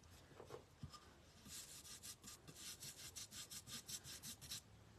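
Faint brushing: a wide paintbrush stroking black acrylic paint onto the edge of a rough wooden picket board in quick, short strokes, starting about a second and a half in and stopping just before the end.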